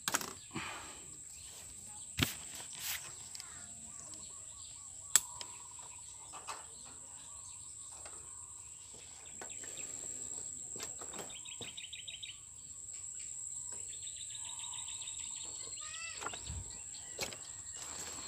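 Outdoor riverside ambience: a bird gives two rapid trills in the second half, over a steady high-pitched whine. A few sharp knocks and rustles come from gear being handled on rocks.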